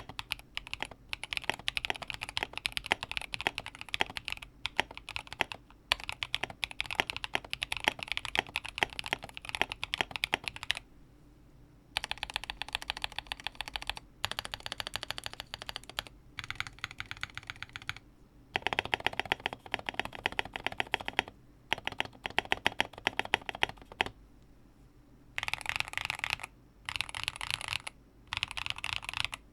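Typing on a Lofree Block mechanical keyboard with TTC Full POM switches: rapid key clicks in long runs, broken by a few short pauses.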